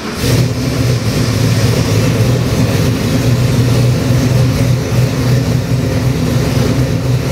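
Carbureted 408 cubic inch stroker V8, built on a Ford 351 Windsor Dart block with AFR heads, running steadily on an engine run stand. It comes in sharply just after the start and holds an even note throughout.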